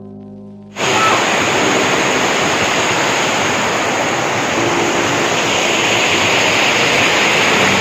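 Steady rushing of flowing water in a stream, starting suddenly about a second in after a fading music chord.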